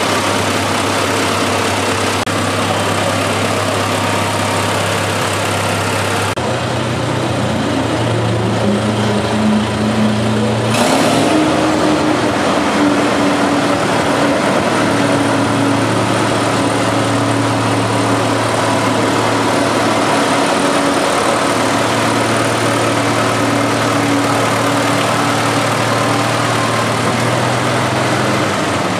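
1943 Allis-Chalmers Model U tractor's four-cylinder engine running steadily, its note rising for a few seconds about a third of the way in before settling again.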